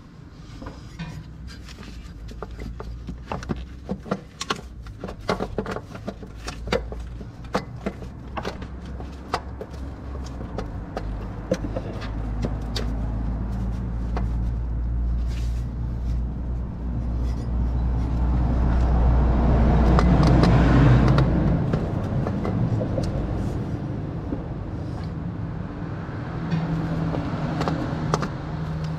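Irregular sharp clicks and knocks over the first dozen seconds, over a low motor-vehicle rumble that builds, is loudest about twenty seconds in, then cuts off.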